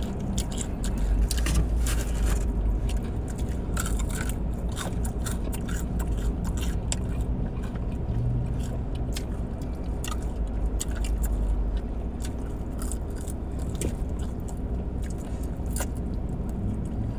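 Crunchy biting and chewing of crispy fried chicken wings close to the microphone: a steady run of sharp, crackly crunches over a low steady rumble.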